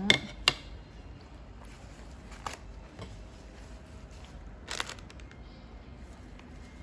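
A few sharp clicks and light taps over quiet room background: a pet monkey picking up and eating pieces of fruit.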